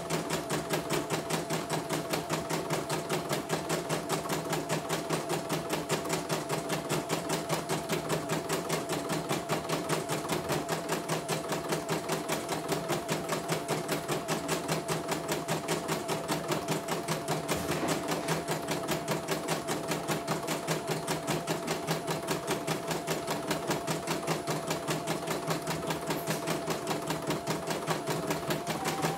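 CNY computerized embroidery machine stitching at speed: a fast, even needle-stroke rhythm over a steady motor whine that steps up slightly in pitch near the end. The machine is running smoothly again after being repaired from a total jam.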